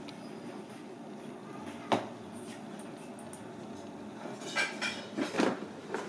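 Kitchen clatter over a steady background hum: one sharp knock about two seconds in, then a short run of clinks and knocks near the end.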